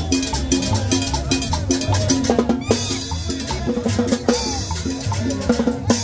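Upbeat Latin dance music with busy percussion over a steady, repeating bass line.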